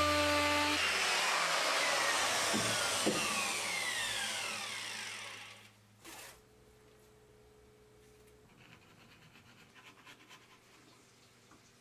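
Router switched off and spinning down: its whine falls in pitch and fades over about five seconds, followed by a single faint knock.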